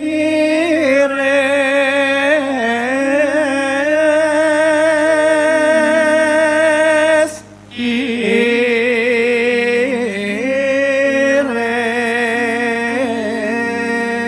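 Javanese singing in wayang style: a voice holding long, drawn-out notes with a wavering pitch. It comes in two phrases, with a short break about seven and a half seconds in.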